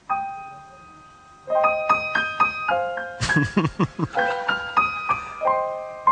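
Piano playing: a chord is struck and left to ring, then quick runs of single notes start about a second and a half in and carry on. A short, louder noisy sound cuts in about three seconds in.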